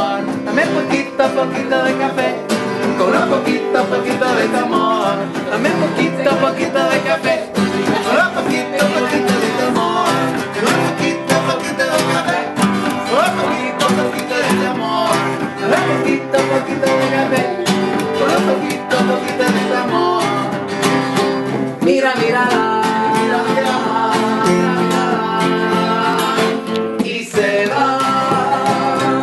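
Acoustic guitar strummed with a voice singing along; about two-thirds of the way through, the music settles into longer held notes.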